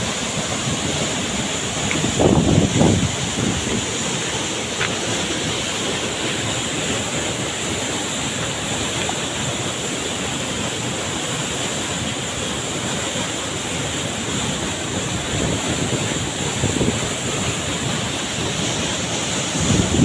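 Steady rush of a waterfall's plunge pool and the shallow, rocky stream flowing out of it. Wind buffets the microphone about two seconds in and again near the end.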